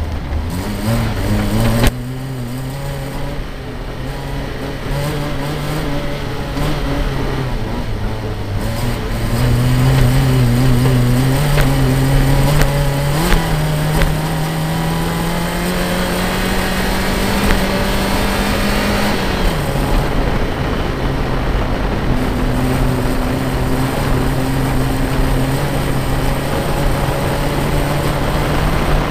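Nissan Micra rally car's engine pulling hard on a gravel stage. Its note climbs slowly through the middle, then drops suddenly about two-thirds of the way in, over a steady rush of tyres on loose gravel.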